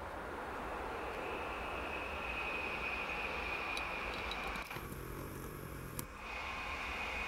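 PKP Intercity Stadler FLIRT electric multiple unit running slowly into the station: a steady rumble of wheels on rail with a faint high whine.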